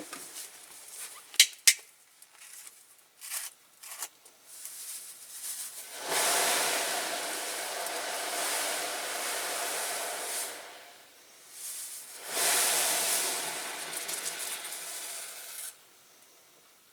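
Caustic soda being tipped into a pot of boiling water: a few clicks and taps from the container, then two steady hissing stretches of a few seconds each as it goes in.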